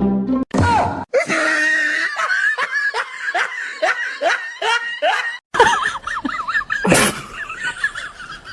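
Laughter in quick repeated high-pitched bursts, about three a second, broken by abrupt cuts.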